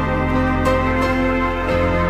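Organ and piano playing a slow medley together: sustained organ chords with piano chords struck over them.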